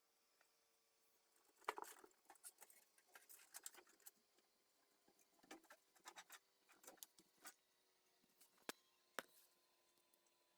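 Faint, irregular clicks, taps and light scrapes of small hard parts being handled, starting about a second and a half in and scattered until near the end, with two sharper clicks close together near the end.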